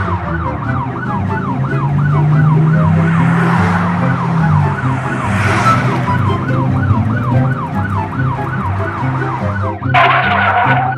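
A fast siren sound effect wailing up and down about two to three times a second, over background music with a low bass line. About ten seconds in the siren stops and a brief, louder burst of another sound takes its place.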